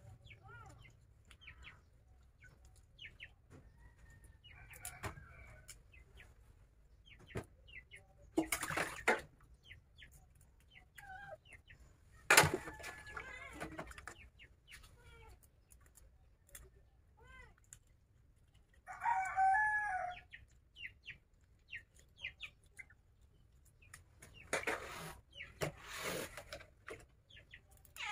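Chickens clucking with short calls scattered throughout, and one longer call about two-thirds of the way through. Over them come splashes and clatter from washing at a stainless steel sink, loudest as a sharp knock about twelve seconds in.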